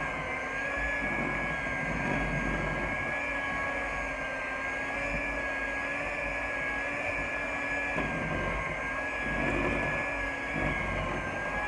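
Handheld electric kitchen mixer running at a steady speed with a whine, its beaters churning cookie dough.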